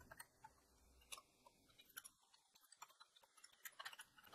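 Faint, irregular clicks of computer keyboard keys as a line of text is typed, scattered singly with a small cluster near the end.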